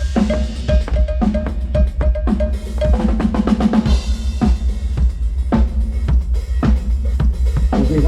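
Drum kit being played for a sound check: a rapid run of kick-drum and snare hits with rimshots and rolls.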